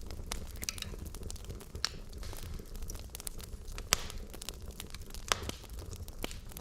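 Wood fire burning in a fireplace: burning logs crackling with irregular sharp pops, over a steady low rumble, with the loudest snaps about four seconds in and again near the end.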